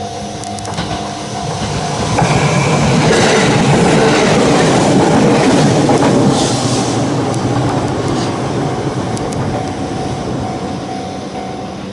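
A JR Minobu Line train passing over a level crossing, its running and wheel noise rising about two seconds in, loudest through the middle and fading away toward the end. The crossing's warning bell rings steadily at the start, is drowned out by the train, and is heard again near the end until it stops.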